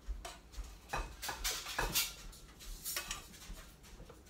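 A kitchen utensil clinking and scraping against a frying pan and bowl as broccoli is served out: a string of irregular light clicks and short scrapes.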